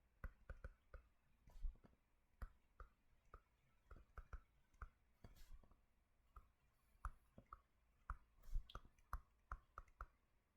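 Faint, irregular light clicks and taps, sometimes several a second, with near silence between them.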